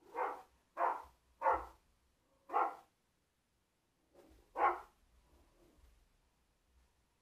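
Rottweiler barking at a remote-control car: four barks in the first three seconds, then after a pause a softer bark and a loud one about four and a half seconds in.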